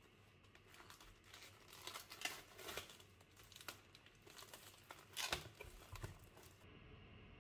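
Plastic film wrapping on a tray of tomatoes crinkling and tearing as it is pulled open: a run of crackles, with louder rips about two seconds in and again about five seconds in.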